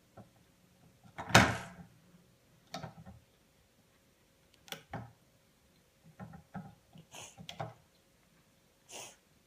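Scattered small knocks and clicks of hands working a plastic bracelet loom and rubber bands, about eight in all, with the loudest knock about a second in.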